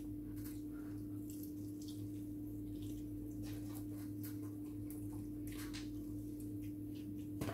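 Close-up eating: chewing and crunching fried chicken, a scatter of short crisp clicks and wet mouth sounds, over a steady low hum.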